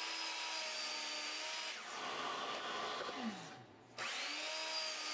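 Miter saw motor spinning up to a steady whine and cutting through a cedar post, then winding down with a falling pitch about three seconds in. It starts again about four seconds in for a second cut.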